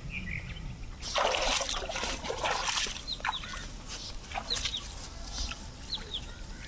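Water splashing and trickling as a small fishing net is lifted out of the river, loudest for a couple of seconds just after the start. A few short, high chirps sound over it.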